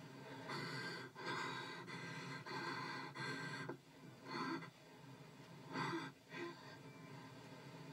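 Gasping, breathy sounds from a film soundtrack played on a television: a long run of gasps, then two short gasps.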